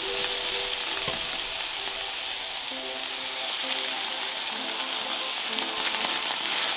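Chopped spinach sizzling steadily in a hot frying pan while a spatula stirs it.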